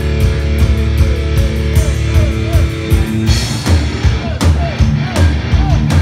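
Live rock band playing loud and distorted, with electric guitars, bass and drums. A held chord gives way about three seconds in to a new driving riff with regular drum hits.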